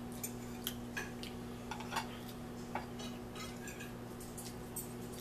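Scattered light clicks of cutlery against a plate during eating, over a steady low hum.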